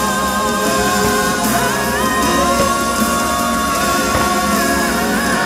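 The fireworks show's soundtrack: loud, continuous music with a singing voice gliding over it.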